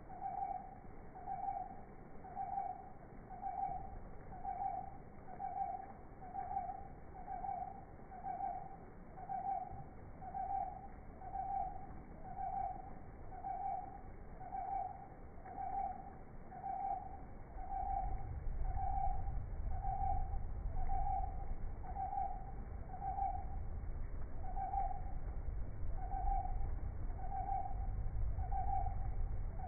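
A steady series of short, identical mid-pitched toots, a little under one a second, never changing in pitch. A low rumble comes in about eighteen seconds in and carries on beneath them.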